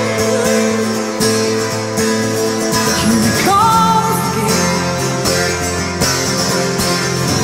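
Live pop-rock band music with electric guitar and a woman's voice. A long held note comes in about halfway through.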